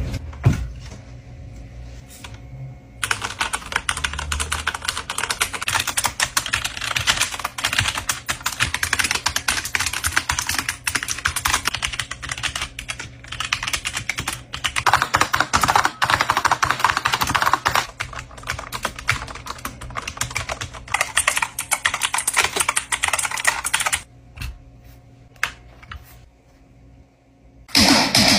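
Fast, continuous typing on a computer keyboard: dense keystrokes start about three seconds in, stop suddenly a few seconds before the end, and are followed by a few single key clicks.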